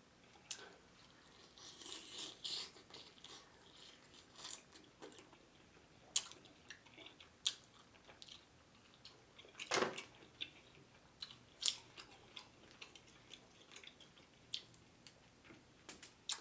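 Close-miked eating: biting into and chewing Chinese fried chicken, with scattered short crunches and mouth clicks, the loudest crunch about ten seconds in.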